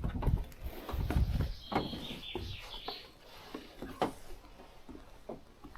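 Irregular knocks and footfalls on wooden boards, with a wavering high creak about two seconds in, then a few scattered clicks.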